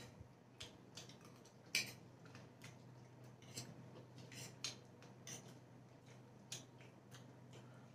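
Metal forks clicking and scraping against plates as noodles are eaten: faint, irregular light clicks, a second or so apart, the sharpest about two seconds in.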